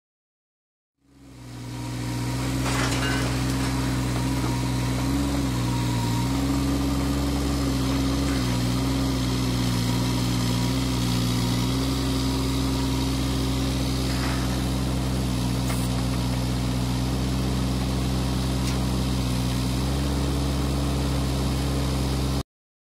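A heavy machine's engine running steadily at an even low pitch. It fades in over about a second early on and cuts off abruptly just before the end.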